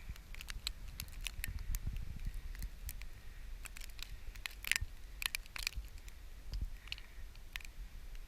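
Packed snow crunching underfoot in short, irregular crunches and clicks, the loudest about four and a half to six seconds in, over a low rumble.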